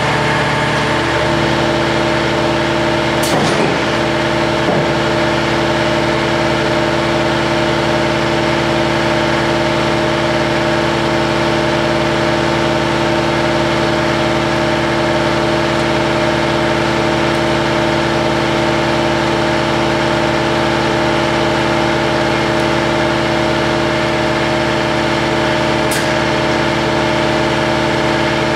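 Powered sheet-metal bending brake running with a steady machine hum, with a sharp click about three seconds in and another near the end.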